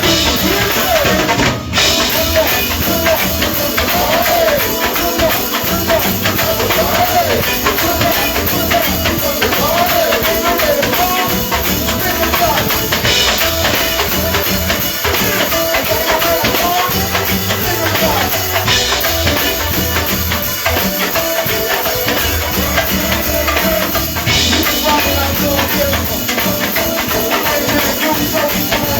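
Live band music playing continuously, with drums and percussion under a wavering melody line.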